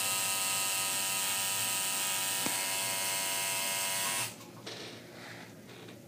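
Tattoo machine buzzing steadily as its needle works into the skin of a wrist, then cutting off suddenly about four seconds in.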